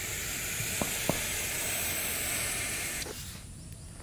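Indian rock python giving one long defensive hiss that stops about three seconds in, with two faint clicks about a second in.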